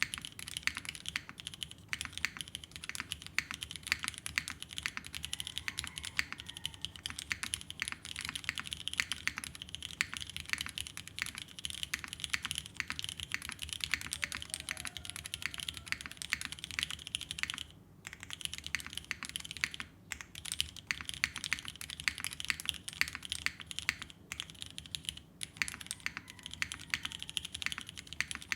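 Continuous typing on an Alchemy AL.6 mechanical keyboard with vintage Cherry MX Black linear switches and GMK keycaps: a dense run of keystrokes, broken by brief pauses about 18, 20 and 24 seconds in.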